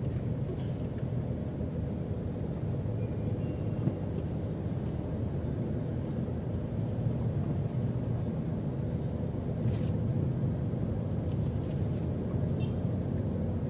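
Steady low rumble of a car's engine and road noise heard from inside the cabin, moving at a crawl in stop-and-go traffic, with a few faint ticks.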